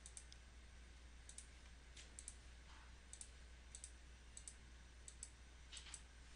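Faint computer mouse clicks, mostly in quick pairs, about ten of them at an unhurried pace, over a low steady hum.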